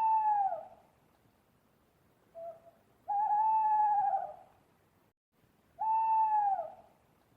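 A bird's call: three long, clear hoots about a second each, each falling slightly at its end, with a short, lower note just before the second.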